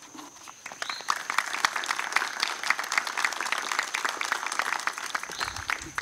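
Audience applauding. The clapping starts about half a second in, runs steadily, and dies away near the end.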